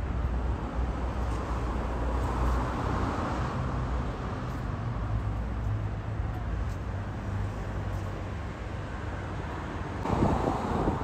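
A low, steady engine hum that fades about halfway through, with wind buffeting the microphone and a stronger gust near the end.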